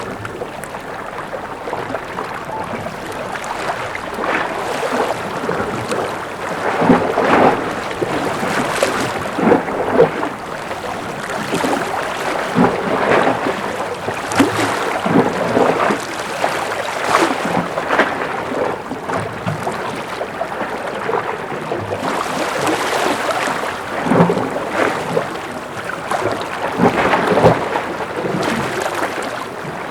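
Gentle ocean waves lapping and splashing against a breakwater, with irregular splashes every second or two.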